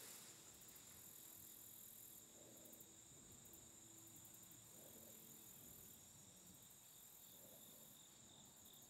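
Faint late-summer insect chorus: a steady high trilling, with a pulsing higher buzz that comes and goes every second or two.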